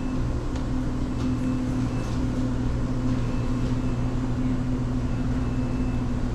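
Steady low mechanical hum with a held low tone, typical of a shop's refrigerated display cases and ventilation running.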